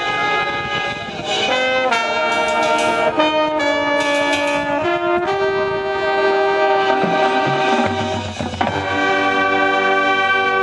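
Marching band brass playing held chords that change every second or so, then one long chord from about halfway; a low brass part comes in near the end.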